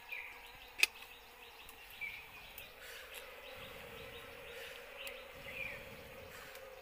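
Bees from a wild nest in a cut-open hollow tree trunk, buzzing in a steady hum. A sharp click comes just under a second in, and a few short high chirps sound over the hum.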